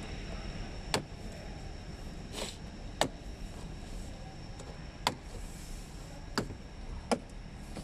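Sharp, separate plastic clicks, about six of them spread unevenly, as a plastic trim pry tool works along the dashboard top cover of a Mercedes-Benz W213 E-Class to release its clips. A low, steady hum runs underneath.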